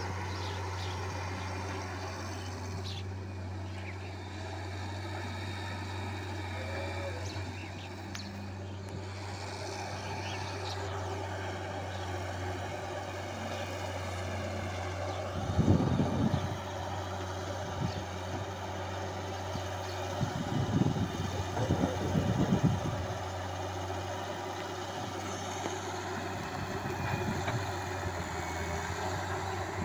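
Diesel engine of a Hitachi wheeled excavator running steadily while it digs and loads sand, with two short louder low surges about halfway through.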